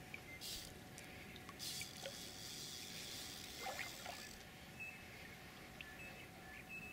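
Faint splashing and swirling of water as a hooked carp fights at the surface, loudest in a hissy burst from about a second and a half to four seconds in. A few short high chirps follow near the end.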